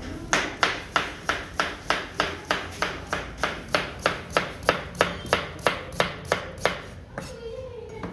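Chef's knife slicing a white radish into rounds on a plastic cutting board: a steady run of sharp chops, about three a second, that stops near the end.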